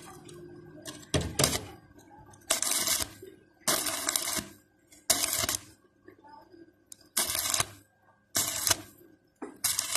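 Arc welding: a thin stick electrode is struck against the metal trim again and again, giving about eight short bursts of crackling arc, each under a second long, as the trim is tack-welded in place.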